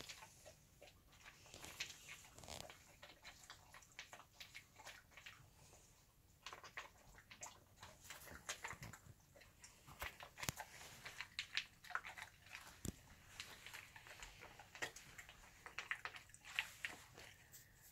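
Dog eating from a plastic slow-feeder bowl: faint, irregular clicks and chewing as it works food out of the maze.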